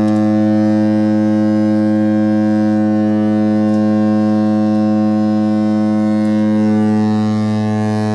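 Cruise ship's horn sounding one long, loud, deep blast at a steady pitch.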